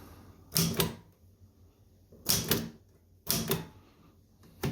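L.C. Smith manual typewriter mechanism clacking in four short bursts, from its decimal tabulator and type keys being worked.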